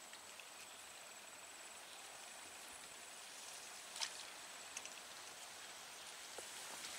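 Faint outdoor ambience with a steady, high-pitched insect trill. A single sharp click sounds about four seconds in, followed by a few small ticks.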